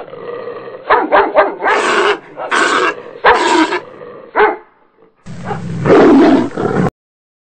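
A dog yelping and barking in distress in a run of loud cries while a leopard attacks it, followed after a short pause by a longer harsh burst that cuts off suddenly.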